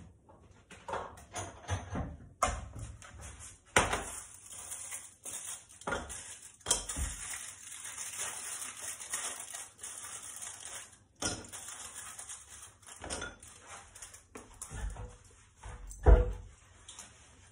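Foil wrapper of a chocolate bar crinkling and rustling as it is unwrapped by hand, with irregular sharp clicks. A loud thump comes near the end.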